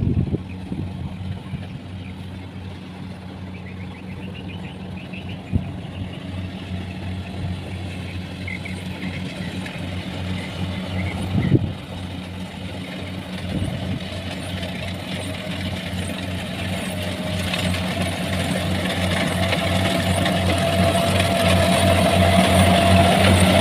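Kubota crawler combine harvester running steadily as it cuts rice, its engine hum growing louder toward the end as it comes closer. Two short knocks come about five and eleven seconds in.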